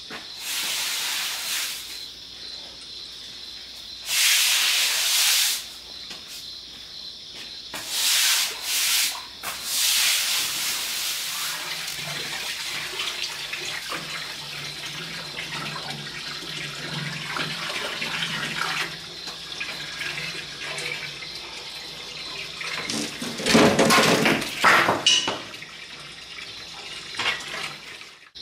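Water spraying and hissing from a garden hose being fitted to a pressure washer's quick-connect, the fitting leaking: several loud bursts of spray in the first ten seconds, a weaker steady hiss after, and a louder spell of spraying and clattering near the end.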